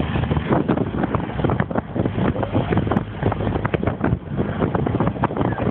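Apal buggy driving along, its engine running as a low rumble under heavy wind buffeting on the phone's microphone in the open cockpit, which comes in rapid irregular gusts.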